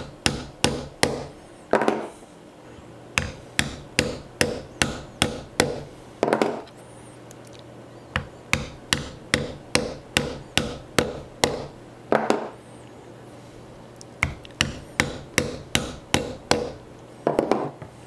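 Mallet striking a spot-setting tool, driving domed brass cap spots through holster leather onto a stone slab. Runs of sharp taps, about three a second, with short pauses between spots.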